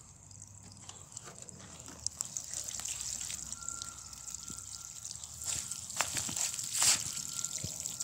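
Water showering from a watering can's rose onto broad squash leaves and wood-chip mulch: a steady spray that builds over the first couple of seconds and runs on.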